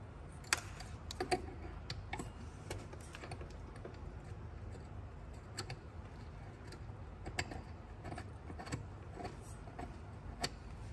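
Irregular light clicks and taps of small metal and plastic parts as an air-dump actuator valve with brass fittings is handled and screwed onto its mounting bracket, with a few sharper clicks, over a low steady hum.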